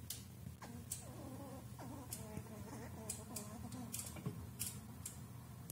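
Squirrels cracking and husking sunflower seeds: scattered sharp clicks, a few a second, over a low steady hum, with a faint wavering pitched sound through the middle.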